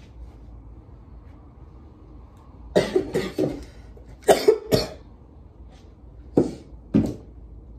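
A person coughing: a quick run of several coughs about three seconds in, another quick run a second later, then two separate coughs about half a second apart near the end.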